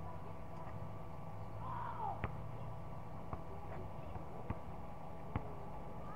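A basketball bouncing on an outdoor court: four or five sharp, separate thuds, roughly one a second, over a steady hum. A brief call sounds about two seconds in.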